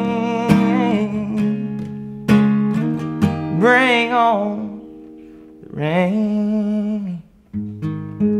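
Acoustic guitar strummed and picked in the outro of a country song, with a man's wordless sung notes held twice with vibrato over the chords.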